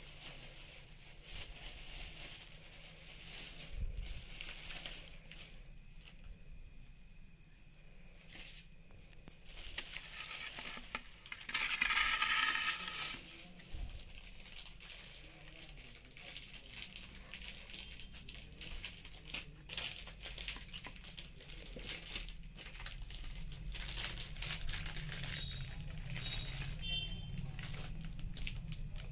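Grated roasted coconut and sugar being squeezed and pressed by hand on a steel plate: a crackly crumbling rustle with small scrapes and ticks against the metal. About twelve seconds in there is a louder scrape with a brief metallic ring.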